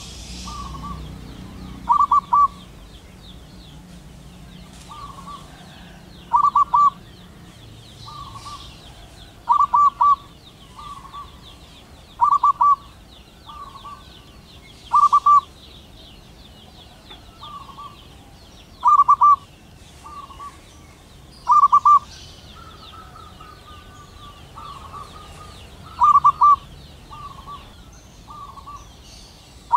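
Male zebra dove (perkutut) singing: a loud cooing phrase of quick notes repeated about every three seconds, eight times, with softer coos between.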